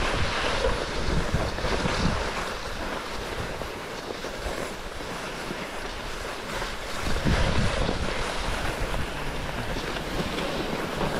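Wind rumbling on the microphone in gusts, strongest near the start and again about seven seconds in, over a steady hiss of cross-country skis gliding on snow.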